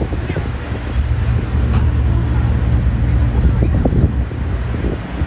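Land train running along the road, a steady low rumble with wind buffeting the microphone.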